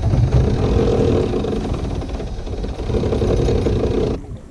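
Boat motor running steadily at speed, with a low rumble and a held engine tone. It cuts off abruptly near the end.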